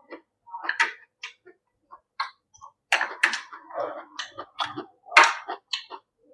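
Close-miked eating of rice with stir-fried beef and pickled mustard greens: irregular wet chewing and lip-smacking clicks, a few of them sharp and loud.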